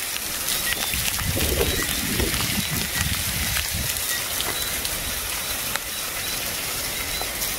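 Heavy rain falling steadily: a dense hiss with many small drop ticks, and a low rushing rumble swelling from about one to four seconds in.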